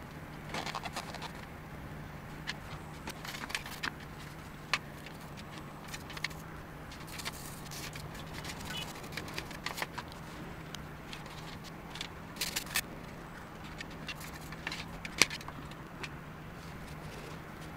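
Small handling noises of drone parts being cleaned: tissue rustling, a toothbrush scrubbing and scattered light clicks of parts on a metal tray, over a steady low hum.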